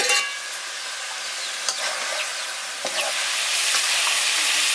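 Food frying in hot oil in a cooking pot, sizzling steadily as it is stirred, with a few clicks of the ladle against the pot. The sizzle grows louder about three seconds in.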